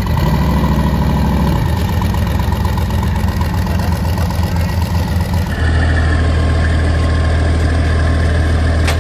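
Burnout pickup truck's engine idling with a choppy, uneven lope as it creeps up onto a car-hauler trailer. About five and a half seconds in, the sound switches to a steadier, deeper engine hum.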